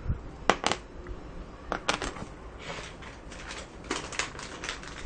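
Small plastic LEGO minifigure pieces (the Genie figure's parts) clicking and tapping as they are handled and fitted together: a few separate sharp clicks at first, then a quicker run of clicks in the second half.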